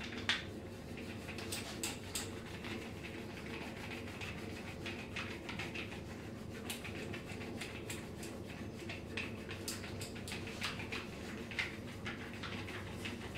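Hands working over a person's body in a massage: soft rubbing with scattered light clicks and taps at irregular moments, over a steady low hum.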